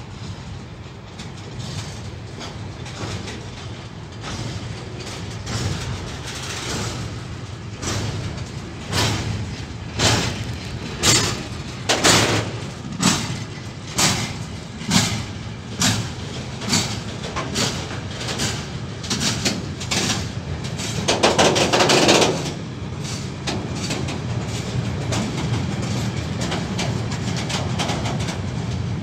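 Freight train of closed sliding-wall wagons and open wagons loaded with timber rolling past, a steady rumble with the wheels clacking over rail joints about once a second through the middle stretch. A louder rushing patch comes about two-thirds of the way through.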